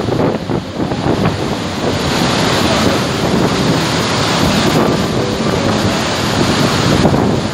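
Iguazú Falls: a massive volume of water plunging into the gorge, making a loud, steady rushing with wind buffeting the microphone.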